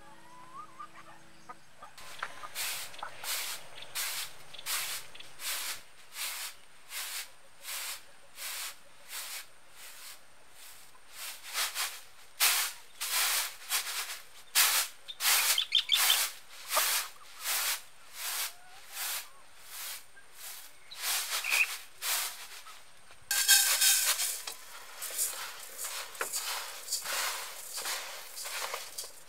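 Uncooked rice tossed in a woven bamboo winnowing tray, a rhythmic swish about twice a second. About three-quarters of the way through, the grains start pouring off the tray into a metal pot in a steady rattling rush.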